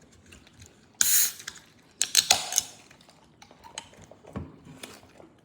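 Takeout food containers and utensils being handled: a short hissy rustle about a second in, then a cluster of sharp clicks and clatter about two seconds in, with a few light ticks after.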